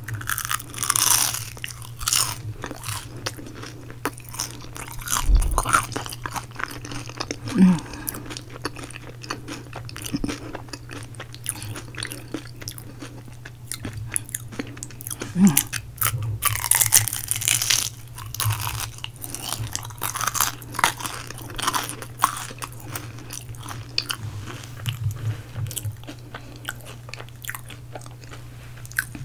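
Close-miked crunching and chewing of a Jollibee peach mango pie's crispy crust. Two big crunchy bites come about a second in and about seventeen seconds in, with crackly chewing between them, over a steady low hum.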